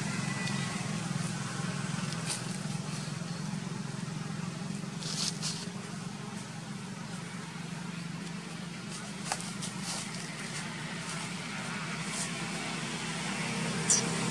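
Steady low hum of distant motor traffic, with a handful of short sharp clicks, the loudest near the end.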